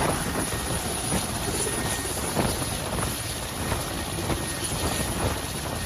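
Helicopter running: steady rotor and engine noise.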